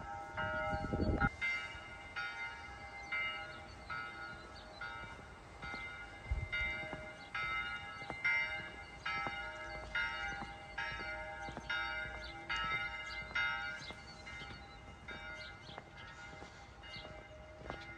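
Church bell ringing, a steady run of strikes at about three every two seconds that grows fainter toward the end. A brief low rumble in the first second.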